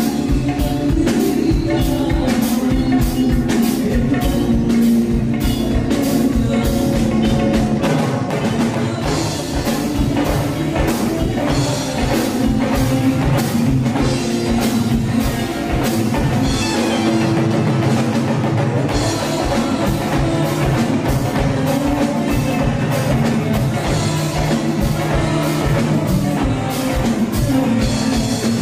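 Live band music with a steady beat on a Pearl drum kit, keyboard, and a male vocalist singing into a microphone.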